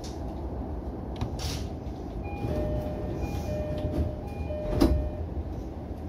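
E231 train's door chime: a two-note ding-dong, short high note then longer low note, played three times, as the sliding doors close with a loud thump near the end. A steady low hum from the stopped train runs underneath.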